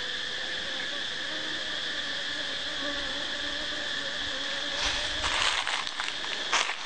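Honeybees buzzing around an opened wooden box hive as a frame is lifted out: a wavering low hum over a steady high-pitched insect drone. About five seconds in, a run of crackling, rustling strokes joins it.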